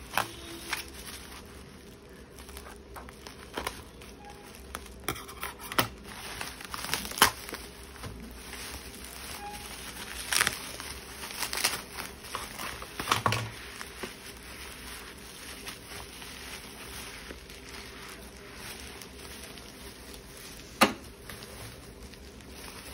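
Bubble wrap and plastic packaging crinkling and rustling as a parcel is cut open with scissors and unwrapped, with scattered snips, tears and sharp clicks; the loudest click comes a couple of seconds before the end.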